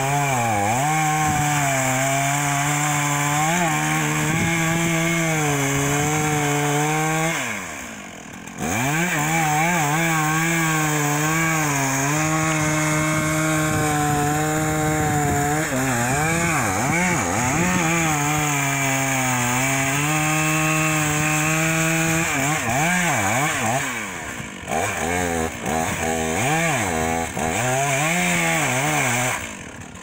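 Two-stroke chainsaw at full throttle cutting into the trunk of a large conifer, its pitch rising and sagging as the chain bites. It eases off briefly about a quarter of the way in and several times near the end, then drops back at the very end.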